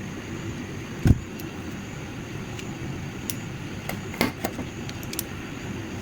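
A single sharp knock about a second in, then a small cluster of light clicks and taps around four to five seconds in, over a steady low hum.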